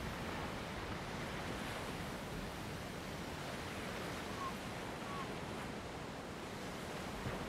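Sea surf washing steadily against a rocky shore, with wind.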